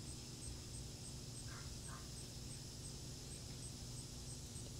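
Faint night insect chorus: a steady high buzz with a short chirp about three times a second, over a low hum.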